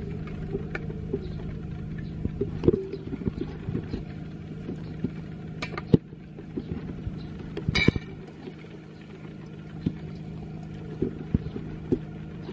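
A wooden spatula and a metal spoon tossing salad in a stainless steel bowl, making scattered clicks, scrapes and clinks. The sharpest come about 3 and 6 seconds in, with a quick run of bright clinks near 8 seconds. A steady low hum runs underneath.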